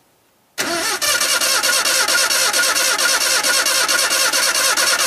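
Pickup truck engine, fed on wood gas from a home-built gasifier, being cranked over by its starter with a steady, even pulse of about six beats a second. It starts about half a second in, after a brief silence.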